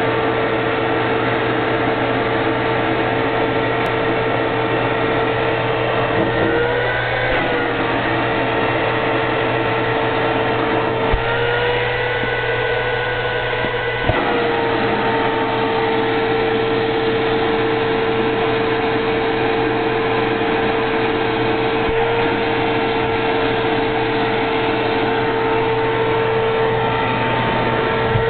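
Vacuum cleaner running with a steady motor whine. Its pitch rises slightly for a moment about seven seconds in, and again from about eleven to fourteen seconds. Two light knocks come near eleven and fourteen seconds in.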